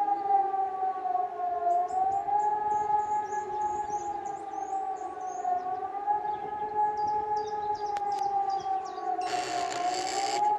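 Two civil defence sirens, an E57 electromechanical siren and a Fischer FS600, sounding the public-warning signal: a continuous loud howl at two pitches that dips and rises slightly about every four seconds. A short burst of rushing noise comes near the end.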